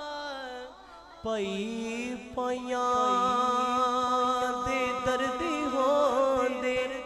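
A man singing a Punjabi devotional verse in praise of Hazrat Fatima, drawing out long held notes after a short pause about a second in.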